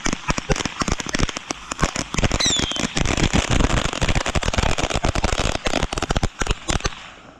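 Consumer fireworks going off in a dense, rapid crackle of sharp pops, with a brief falling whistle about two and a half seconds in. The crackling stops just before the end.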